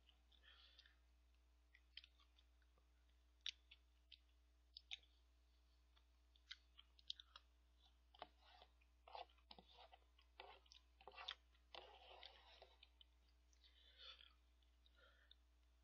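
Faint eating sounds: scattered short clicks of a utensil against an instant ramen-and-rice cup, with quiet chewing in between.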